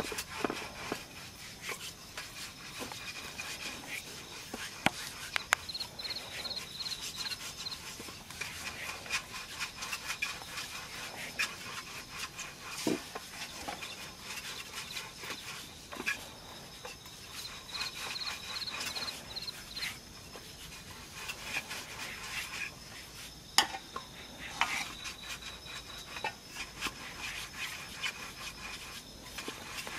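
Continuous rubbing and scraping of hands working rice-flour dough, with scattered clicks. A high, rapidly repeated chirping comes and goes in the background.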